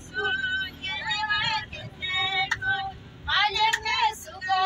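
A high female voice singing a melody in long held notes with a wavering vibrato, over a low steady rumble.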